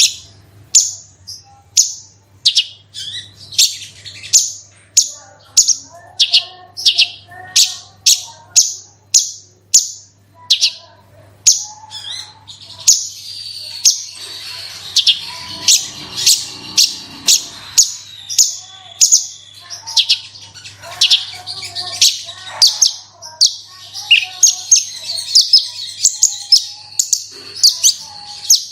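Javan bush lark (branjangan) singing. A run of sharp, repeated high notes, about two to three a second, gives way about halfway through to a denser, almost unbroken warbling song.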